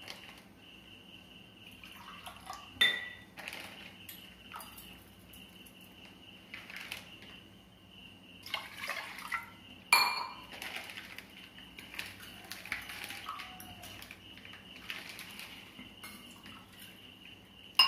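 Milk being poured by the glassful into a metal pressure cooker pot, soft splashing and trickling, with a sharp ringing clink of the glass against the pot three times.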